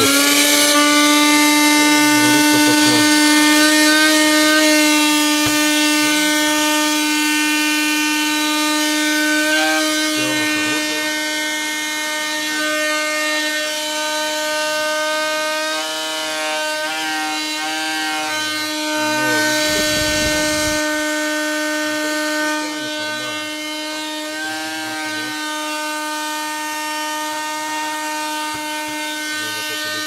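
Heyner Cyclonic Power PRO 12 V, 138 W car vacuum cleaner switched on and running steadily, a high motor whine over rushing air, powered from a computer ATX power supply. Its pitch wavers briefly a few times around the middle, and the sound grows a little quieter toward the end.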